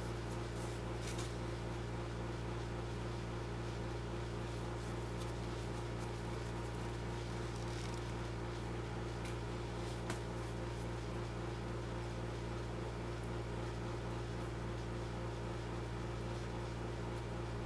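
A steady low hum, with a few faint clicks now and then.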